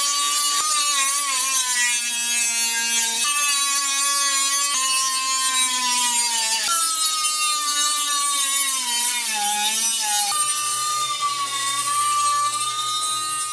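A small high-speed rotary grinder with an abrasive stone grinding a metal keg rim and throwing sparks: a loud, steady high-pitched whine over a bright grinding hiss. The pitch wavers and sags about two-thirds of the way through before climbing back.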